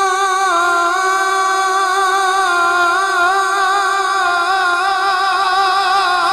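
A man singing one long held note of a naat line, with steady vibrato. The pitch steps down slightly about half a second in and then holds.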